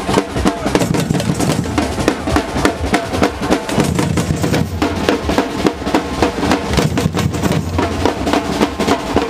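Street percussion band playing live: bass drums and snare drums beat a fast, steady rhythm, with a metal shaker and tambourine on top.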